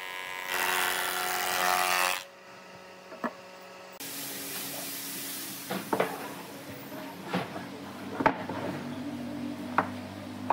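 Wood planer cutting a pine board, a loud dense whine that stops about two seconds in. Later, several sharp wooden knocks as thick pine boards are set down and shifted against each other on a workbench.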